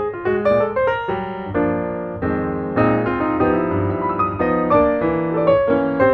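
Background piano music: a run of single notes, then held chords near the middle, and a quicker figure again near the end.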